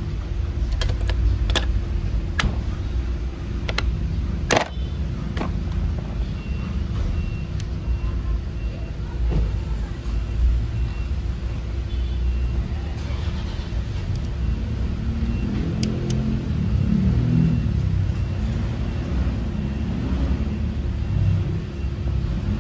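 A steady low engine hum from a running vehicle, with a series of sharp metallic clicks and taps in the first few seconds as the alternator's brush-holder cover is fitted back on. Faint voices join in the second half.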